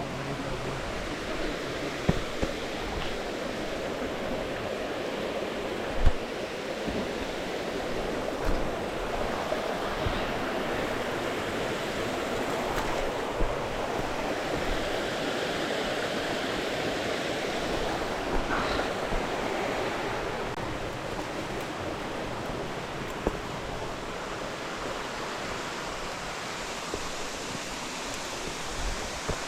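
Steady rush of falling water, with a few sharp knocks scattered through it.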